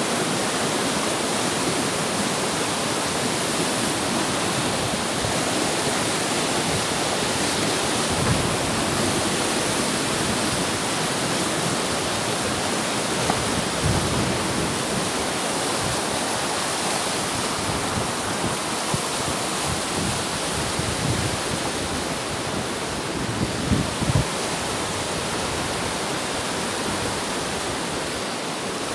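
Fast river rushing over rocks below the bridge, a steady hiss of running water, with a few low thumps scattered through it.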